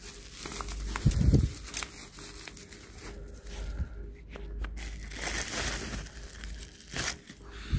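Plastic bubble wrap crinkling and rustling as it is handled and pulled open by hand, with a dull thump about a second in.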